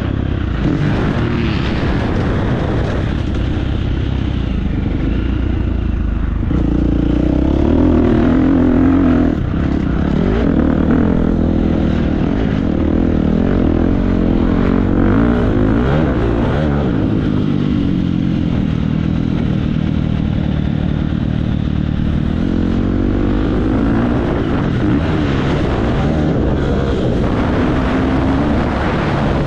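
2017 Husqvarna FC350's 350 cc four-stroke single-cylinder engine under hard riding, revving up and down as the throttle opens and closes.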